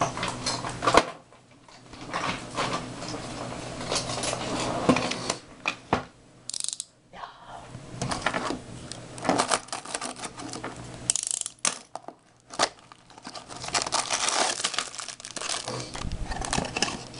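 Cardboard toy box being opened by hand and its plastic-wrapped parts taken out: irregular rustling and crinkling of packaging mixed with sharp clicks and taps of hard plastic pieces, with a few brief pauses.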